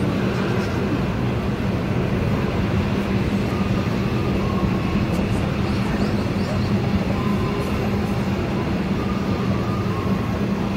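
Aerial ropeway cabin running along its cables: a steady low mechanical hum with rumble.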